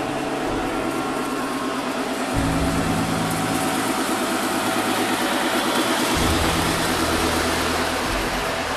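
A steady mechanical running noise with a fast, even rhythm, heard over background music whose bass note changes twice.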